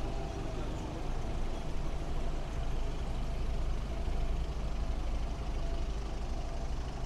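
Street traffic: a steady low rumble of motor vehicles running on the road alongside.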